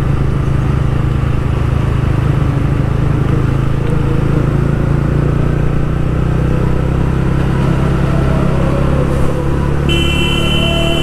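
TVS Ronin 225cc single-cylinder motorcycle engine running steadily on the road, its pitch dropping a little past the middle. Near the end a shrill horn sounds for about a second and a half.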